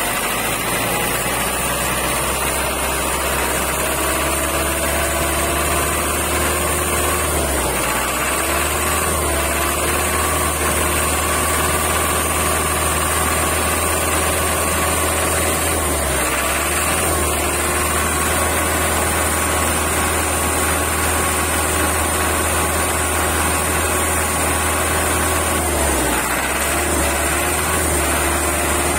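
Isuzu OHC diesel engine running at idle. Its speed creeps up over the first several seconds, then sags briefly and recovers three times, about eight, sixteen and twenty-six seconds in.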